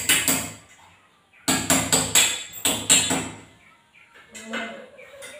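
Hammer blows: two sharp strikes near the start, then a quick, even run of about eight at some four a second, followed by a few fainter knocks.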